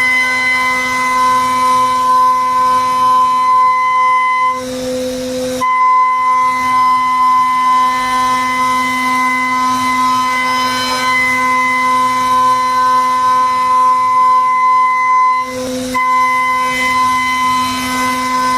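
Milling machine cutting, giving a loud, steady high-pitched whine that breaks off twice, for about a second each time, into a rougher noise.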